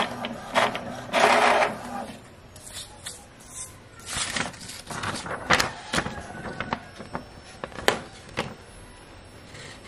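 Epson L120 inkjet printer finishing a page, its paper-feed and print-head mechanism running in a few short bursts over the first two seconds, the longest about a second in. Then the printed sheet is pulled out and handled, with paper rustling and crinkling in short bursts.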